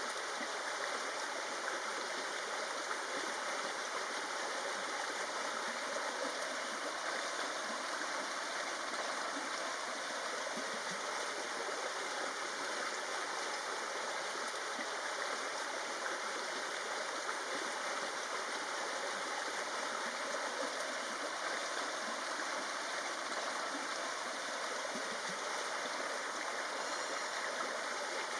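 Steady rushing and trickling of a forest stream, even and unbroken.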